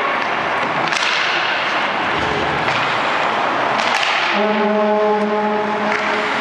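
Ice hockey play: skates scraping on the ice, with sharp cracks of sticks or puck about a second in and again about four seconds in. Near the end a low, steady horn sounds for about a second and a half.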